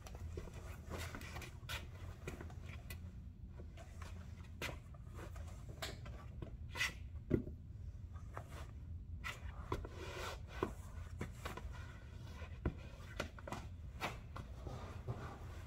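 Rubber boots stepping and scuffing on a concrete floor, with scattered soft knocks and rustles as the boots are shifted and handled, over a steady low hum.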